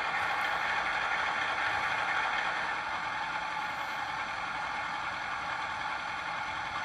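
Model DF11 diesel locomotive running, a steady mechanical whirr of its motor and gears that eases off slightly over the second half.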